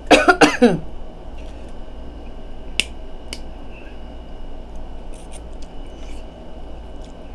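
Boiled shrimp shell being peeled and snapped by hand: a few sharp, crisp cracks, the loudest about three seconds in, with fainter ones later. A short burst of voice at the very start is the loudest sound.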